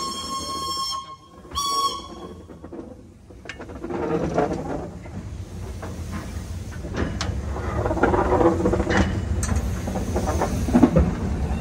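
Steam whistle of locomotive B 5112 ends a long blast about a second in, then gives one short toot. After that come the steady running noise of the moving steam locomotive and scattered knocks and rattles.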